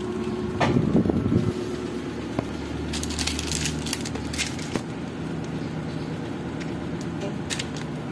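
A steady low mechanical hum with a few crackles and rustles from the phone being handled.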